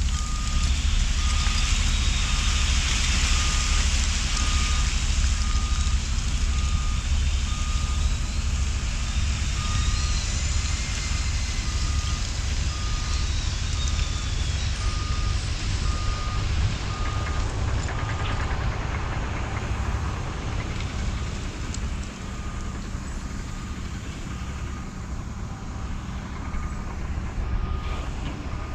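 Reverse alarm beeping about once a second over a diesel dump truck's engine running, the beeps pausing for a few seconds past the middle and then resuming.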